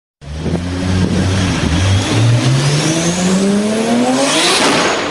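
Sports car engine and exhaust running at a steady low pitch, then accelerating hard with one long, steadily rising rev through the gear; a rush of noise near the end.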